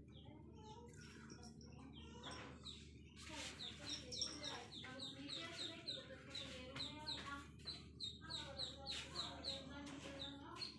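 Birds calling in short, quick repeated chirps, about two or three a second, starting about three seconds in.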